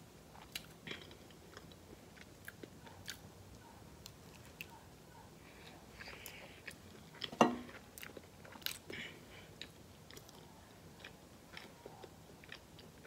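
A person biting and chewing a Hot Pocket: soft, scattered mouth clicks, with one louder short sound about seven and a half seconds in.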